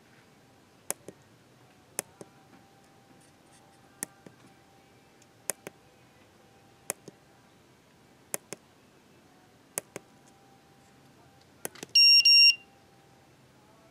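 Tactile push buttons on a microcontroller timer board clicking: a press-and-release pair about every one and a half seconds, eight times. Near the end comes a loud, high-pitched double beep from the board's piezo buzzer, which signals that the timer has started.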